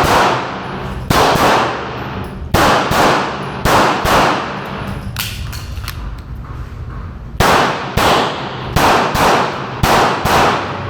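S&W Shield Plus compact pistol firing a string of about a dozen loud shots, mostly fired in quick pairs with short pauses between, each shot followed by a brief ringing echo.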